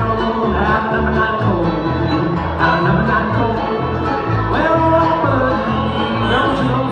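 Bluegrass music: banjo and guitar playing over a bass line that moves note by note, with singing.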